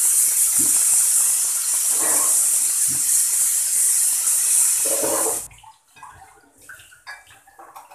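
Kitchen tap running water into a sink as steel utensils are rinsed, shut off sharply about two-thirds of the way through. Then a few faint clinks of steel dishes being handled.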